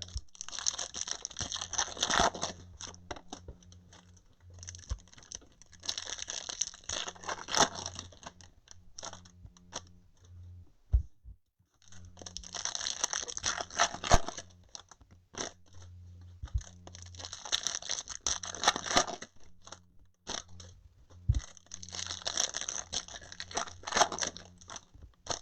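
Foil trading-card pack wrappers being torn open and crinkled, five times in turn, each tearing rustle lasting two to three seconds.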